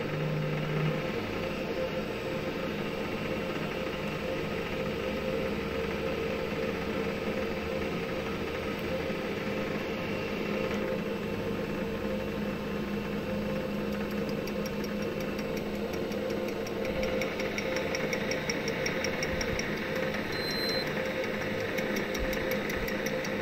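Metal lathe running with a steady hum while turning (facing) an engine camshaft bearing cap; a harsher, higher-pitched sound joins about 17 seconds in.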